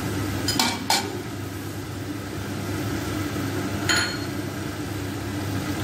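A metal spatula knocks against a karhai three times, twice close together under a second in and once about four seconds in, as chicken and green chillies are stirred. Under it runs a steady low rumble with a faint hiss of frying.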